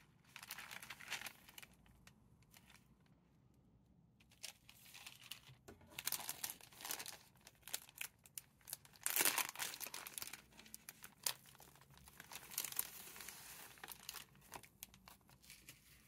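Crinkling of plastic nori packaging as it is handled, on and off, with a louder stretch about midway as a resealable zip-top bag is pulled open.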